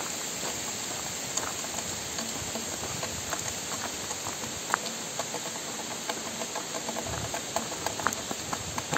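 A steady watery hiss with many light, scattered taps and clicks through it.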